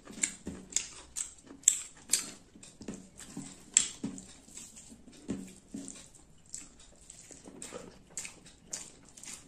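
Close-miked wet eating sounds of rice and chicken curry eaten by hand: irregular sticky smacks and squelches, about two or three a second.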